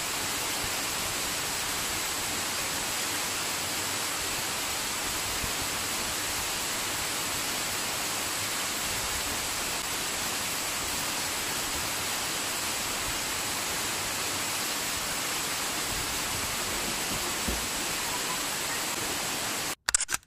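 Waterfall pouring steadily over a rock face into a pool, an even rushing noise. Near the end it cuts off abruptly after a couple of short clicks.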